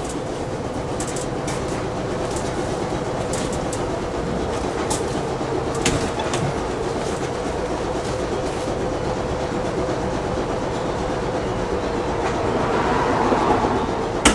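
Stopped Peter Witt streetcar humming steadily, with a few sharp clicks and knocks in the first half. The hum swells slightly near the end.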